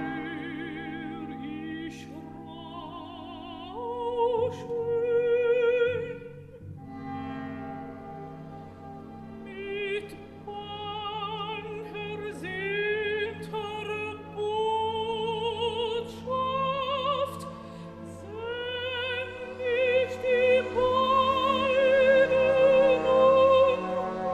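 Operatic singing as background music: a classical voice holding long notes with strong vibrato over instrumental accompaniment.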